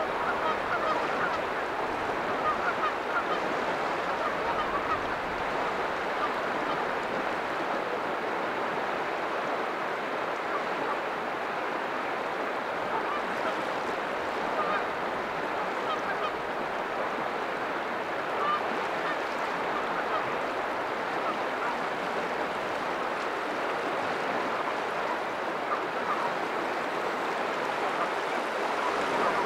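Sea surf washing steadily against a rocky shore.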